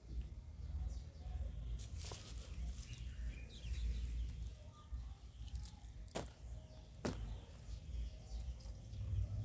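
Birds chirping in short calls, over a steady low rumble, with three sharp knocks or clicks about two, six and seven seconds in.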